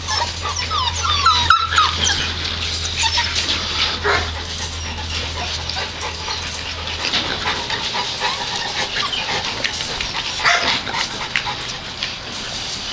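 American Pit Bull Terrier puppies whimpering and yipping: many short, high-pitched squeaks, thickest in the first couple of seconds and scattered after, among small clicks and scuffling. A low hum underneath stops about halfway through.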